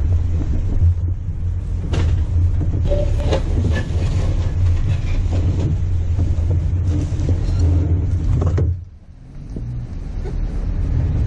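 Off-road 4x4 driving on a rough trail: a steady low engine and tyre rumble with scattered knocks. About three-quarters of the way through the sound drops away sharply for under a second, then the rumble returns a little quieter.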